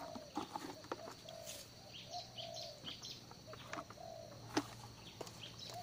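Birds calling: a short arched cooing note repeated every half to three-quarters of a second, with scattered higher chirps over a faint steady high tone. A single sharp click sounds about four and a half seconds in.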